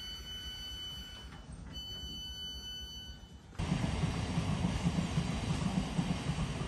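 A stopped electric multiple-unit train sounds a steady, high-pitched electronic door tone with its doors open, broken once briefly. About three and a half seconds in, this cuts to a louder, steady rushing noise with a fluttering low rumble.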